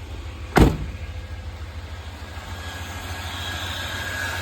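1996 Chevrolet Impala SS's 350 cubic inch LT1 V8 idling with a steady low pulse, heard from inside the car. A single sharp knock about half a second in is the loudest sound.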